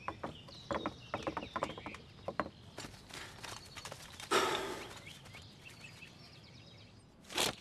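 Birds chirping among trees, with a run of irregular footsteps in the first two seconds or so and one louder, longer rustle about four seconds in.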